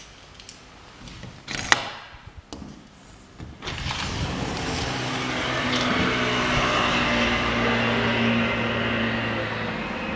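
A sharp click about two seconds in, then, from about four seconds in, steady road traffic from the street with a vehicle engine's hum running under it.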